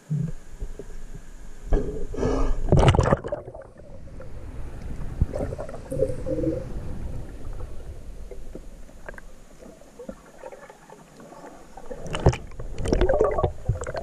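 Splashing as a GoPro in a waterproof case goes under river water about three seconds in, then muffled underwater sound of moving water heard through the housing, with a few louder splashes and knocks near the end.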